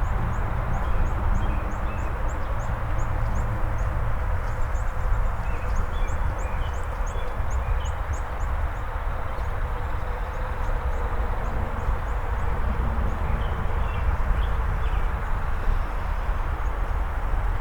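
Outdoor neighborhood ambience: a steady rushing noise with a deep rumble underneath. Over it, a songbird repeats quick, high, thin chirps several times a second, and a few lower chirps come from other birds.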